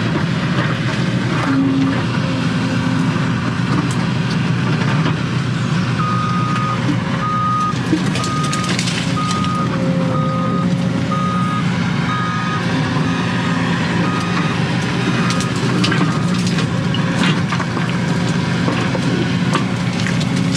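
Excavator's diesel engine running steadily under digging load, with hydraulic work and the knocks of dirt and debris in the bucket, heard from inside the cab. About a quarter of the way in, a reversing alarm starts beeping about once a second and keeps on for some ten seconds.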